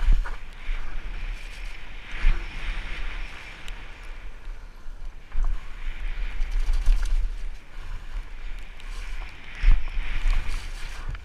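Fat bike descending a wet dirt trail: wind buffeting the helmet camera's microphone over a steady rush of fat tyres on wet dirt, with the bike rattling over bumps and a few harder jolts near the start, about two seconds in, and near the end.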